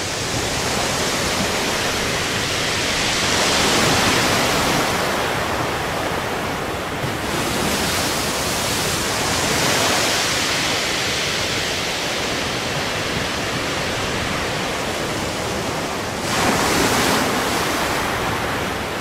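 Sea waves breaking and rushing on the shore, a steady surf noise that swells about four seconds in and again near ten seconds, with a louder surge near the end.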